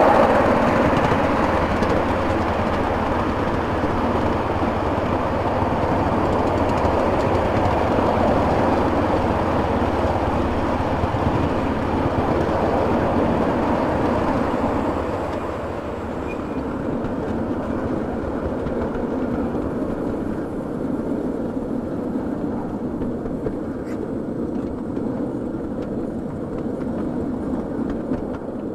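Miniature steam locomotive running along its track, loudest at the start and fading gradually as it draws away, quieter still from about halfway through.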